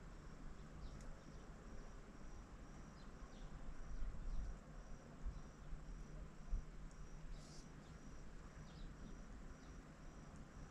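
An insect chirping steadily, one short high chirp about twice a second, with a few low rumbles about midway.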